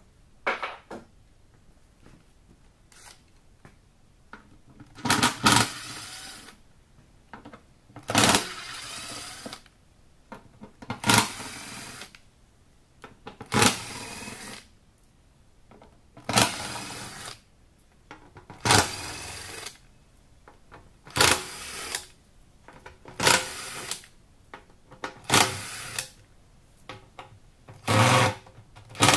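Cordless power driver backing out the screws of a motorcycle fuel tank's pump cover plate. It runs in about ten short bursts of under a second each, one every two to three seconds.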